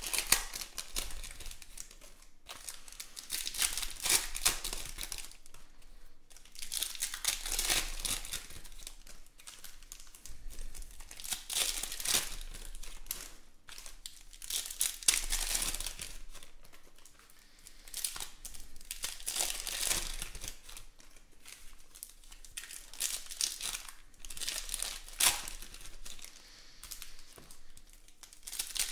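Trading-card pack wrappers being torn open and crinkled by hand. The crinkling comes in repeated bursts every few seconds with short pauses between.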